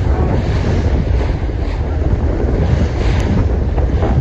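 Strong wind buffeting the microphone over the rush and slap of choppy sea water around a small inflatable boat.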